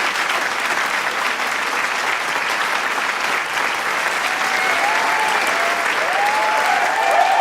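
Large crowd applauding steadily in a dense wash of clapping, with cheering and whooping voices rising over it in the second half.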